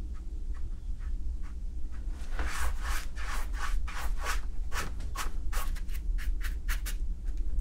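A large watercolor brush is swept over paper in quick scratchy strokes, laying a wash. The strokes are sparse at first, then come about three a second from about two and a half seconds in, over a faint steady low hum.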